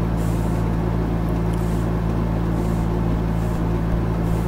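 Steady electrical hum with several even overtones over a constant background hiss, with a few faint, short high hisses.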